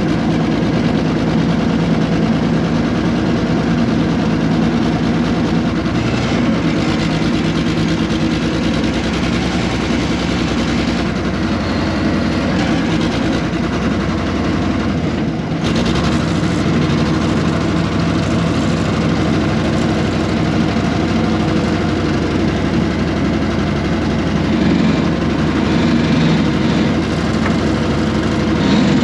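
The air-cooled Deutz diesel engine of a 1970s RM.80 excavator running steadily. Its note shifts a few times and dips briefly about halfway through.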